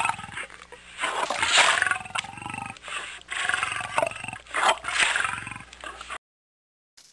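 Tiger snarling and growling in a series of loud bursts, each about half a second to a second long, cutting off suddenly about six seconds in.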